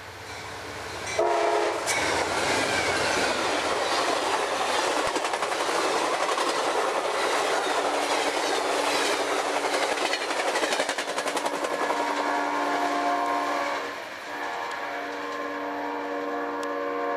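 Amtrak passenger train passing at speed behind a GE Genesis diesel locomotive: a short blast of its K5LA five-chime horn about a second in, then the rush and clickety-clack of the coaches' wheels going by. The horn sounds again, held, as the train pulls away in the last few seconds.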